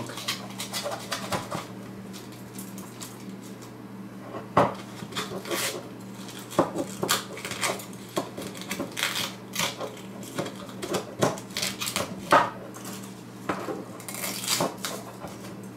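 Needle-nose pliers and small metal speaker parts clicking and clinking irregularly as the wire leads on a small speaker's terminals are worked, with a few louder knocks, over a low steady hum.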